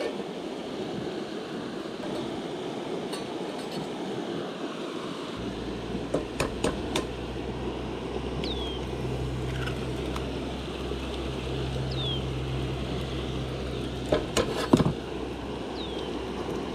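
A steady rushing hiss. A low engine drone comes in about five seconds in, light clinks sound around six seconds in and again near the end, and a bird gives a short falling whistle three times.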